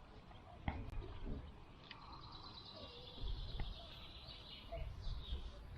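Faint outdoor ambience: a small bird chirping in a quick repeated trill for a couple of seconds midway, over a low rumble, with a few light clicks.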